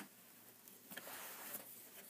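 Faint hand-handling sounds of pins on a woven basket: a light click at the start, then a soft rustle with a small click about a second in.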